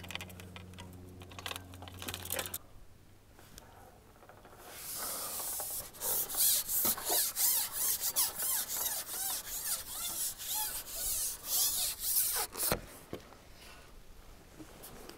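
Carbon fishing pole being shipped out hand over hand, its sections rubbing and squeaking against hands and roller in a rasping sound that pulses about twice a second, ending with a sharp knock. Before it a low steady hum cuts off about two and a half seconds in.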